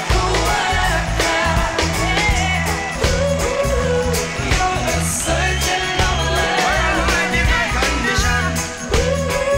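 A rock band's song with lead vocals sung over drums keeping a steady beat, bass and electric guitar.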